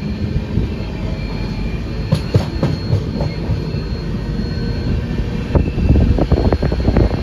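Intercity express passenger train running at speed, heard from the coach: a steady rumble of the wheels on the rails with sharp clicks and clatter. It grows louder and busier about five and a half seconds in.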